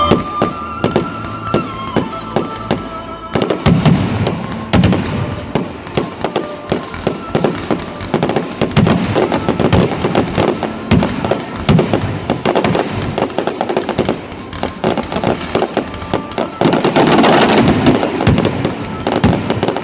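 Fireworks display: a dense, rapid string of aerial shell bangs and crackles, many per second, that thickens sharply about three seconds in.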